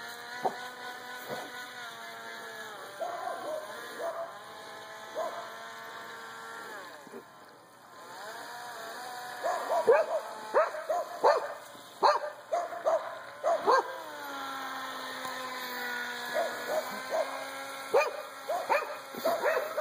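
Small radio-controlled speed boat's motor running with a steady whine that rises and falls in pitch as the throttle changes. About halfway through, a dog barks and yips repeatedly, louder than the motor, for a few seconds, and starts again near the end.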